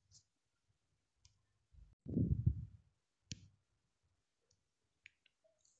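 Near-silent kitchen with a short, low, muffled thump about two seconds in and a single sharp click a little after three seconds, from handling of the cookware.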